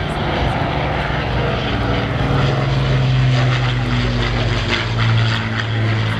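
Avro Lancaster bomber's four Rolls-Royce Merlin piston engines giving a steady, loud propeller drone as it flies past, the pitch easing down slightly.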